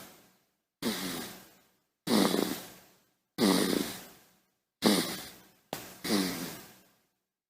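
Baby snoring: a run of about six short snoring breaths, roughly one every second and a quarter, each starting suddenly with a low buzzing rasp and fading away, with dead silence between them.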